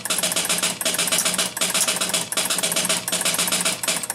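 Electro-mechanical relays and score motor of a 1974 Gottlieb Big Shot pinball machine clattering in a fast rhythm as it tries to start a game and reset, with a short pause about every three-quarters of a second. A steady low hum runs underneath.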